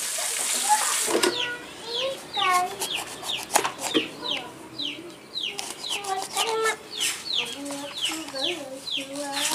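Fish sizzling as it fries in a pan, cut off about a second in. Then chickens: many short, high, falling peeps in quick succession with lower clucking, and a few sharp knocks of a knife through limes onto a wooden board.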